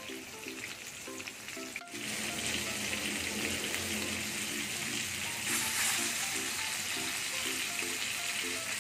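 Whole pomfret coated in rice flour shallow-frying in hot oil in a pan, sizzling steadily. The sizzle jumps louder about two seconds in.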